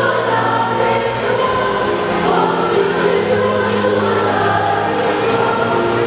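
Choir singing a slow hymn with long held notes.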